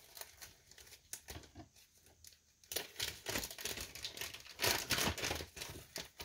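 Packaging around a plastic model kit's decal sheet being opened by hand: a few scattered crinkles, then from about three seconds in a steady run of crinkling and tearing.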